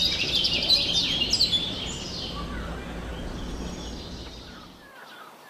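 Small songbirds chirping and singing in a busy, rapid chatter that fades away over the last few seconds.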